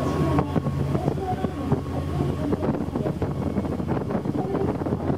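Sightseeing boat's engine running with a steady low drone under wind buffeting the microphone and water rushing past the hull.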